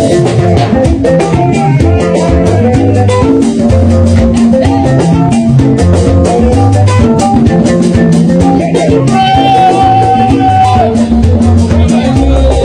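Upbeat dance-band music with guitar and drums and a steady beat; a long held high note comes in about nine seconds in and lasts a second and a half.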